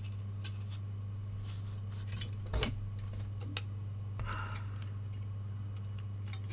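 Screwdriver prying a small power-supply circuit board out of its plastic frame: scattered small clicks and scrapes of metal on plastic, with one louder knock about two and a half seconds in. A steady low hum runs underneath.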